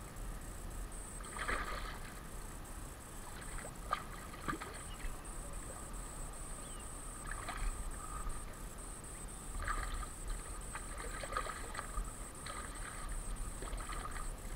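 Scattered brief splashes and rustles from a hooked bass being played on the line at the water's edge, over a steady high insect buzz.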